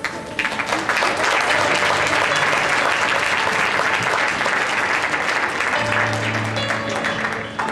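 Audience applause in a theatre, beginning just after the start and dying away near the end, over quiet background music.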